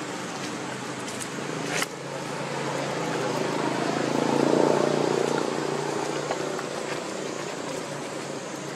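A passing motor vehicle's engine grows louder to a peak about halfway through, then fades away. There is a sharp click a little under two seconds in.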